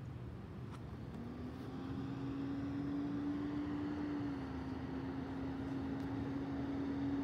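A motor vehicle's engine hum: a steady low tone that comes in about a second in and grows louder, dips slightly in pitch about four seconds in, and falls away at the end, over a low rumble.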